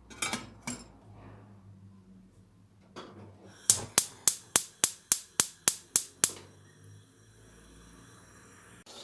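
Kitchen utensils clinking twice, then a quick run of about ten sharp, evenly spaced knocks, about four a second.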